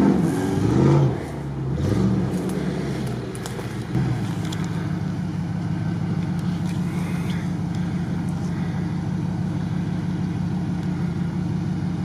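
Off-road 4x4 engines: one revving up and down unevenly for about the first four seconds, then an engine running steadily at low revs as a Range Rover creeps between the trees.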